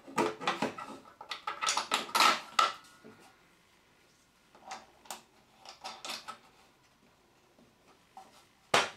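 Plastic blade guard being fitted and clipped onto a table saw: a quick run of clicks and knocks in the first few seconds, a few scattered knocks after, and one sharp click near the end.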